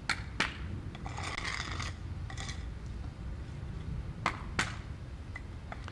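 A hammer knocking on the edge of a hardwood board laid on cold-patch asphalt in a driveway expansion joint, tamping the patch: two quick taps at the start and two more about four seconds in. In between, a gritty scraping of the board and asphalt mix over the concrete.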